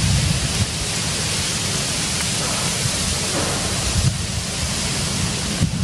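Strong wind blowing: a steady rushing hiss over a low, uneven rumble of wind buffeting the camera microphone.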